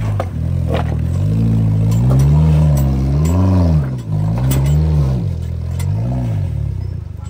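Off-road vehicle's engine revving up and falling back about five times as it works over a rough, dangerous track, with scattered knocks and clatter.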